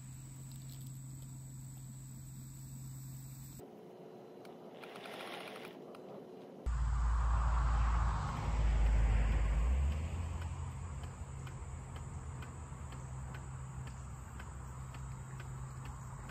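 Outdoor ambience with insects chirping in a steady, even rhythm. For a few seconds in the middle, from about a third of the way in, a low rumble sits on the microphone.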